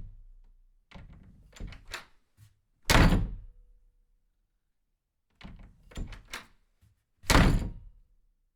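Three heavy thuds about four and a half seconds apart, each coming after a few lighter clicks and knocks, in a repeating rhythm.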